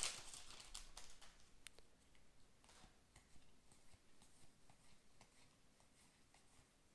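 Faint rustle and light ticks of trading cards being handled, dying away to near silence after about two seconds with only a few soft clicks left.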